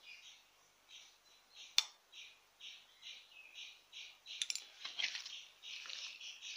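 A bird chirps over and over, about two to three short calls a second, with a single sharp click about two seconds in. From about four seconds in, a crackly rustle takes over as a hand squeezes and mixes grated coconut in a clay pot.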